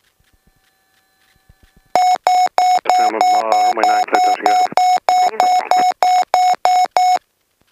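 Loud electronic beeping in the aircraft's headset audio: a single-pitch tone repeating about three times a second for roughly five seconds, then stopping abruptly. A muffled, garbled voice-like sound runs beneath the middle of the beeping.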